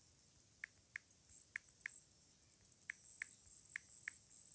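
Faint key-press clicks from a tablet's touchscreen keyboard as text is typed: eight short, high ticks, mostly in pairs.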